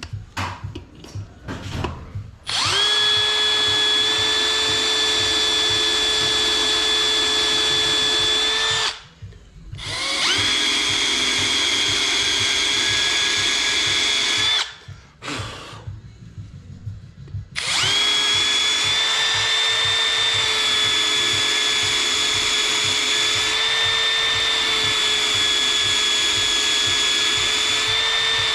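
Milwaukee M18 cordless drill boring into a cast-iron Ford side-valve cylinder head, drilling holes along a crack for a cold metal stitching repair. The motor runs with a steady whine in three long runs, stopping briefly twice. There are a few light knocks and clicks before the first run.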